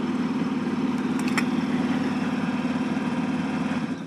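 An engine running steadily with a fast even pulse, cutting off abruptly near the end.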